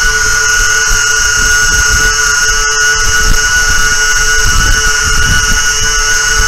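Twin electric motors and propellers of an RC model plane running steadily at part throttle, a constant whine of several pitches, with low wind rumble on the microphone. The battery under load is at about 3.3 volts a cell, close to the speed controller's low-voltage cutoff, which the owner suspects is cutting the motors early.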